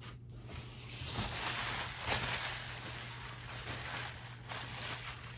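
Bubble wrap and plastic packaging rustling and crinkling as it is handled.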